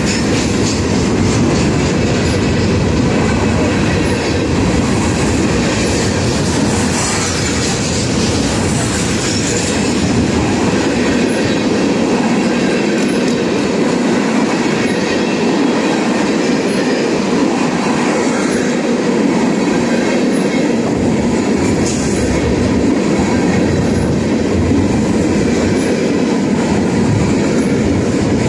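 Open-top freight cars of a passing freight train rolling by close to the track: a loud, steady noise of steel wheels running on the rails, with no break in it.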